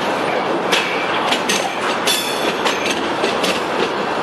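Covered hopper cars of a slow freight train rolling past: a steady rumble of wheels on rail with irregular clicks and clanks, and a brief high squeal about two seconds in.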